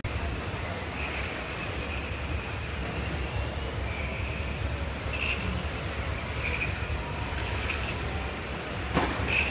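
Radio-controlled electric touring cars racing on an indoor carpet track: the faint high whine of their motors comes and goes as they pass, over the steady rumble of a large hall. A sharp knock sounds near the end.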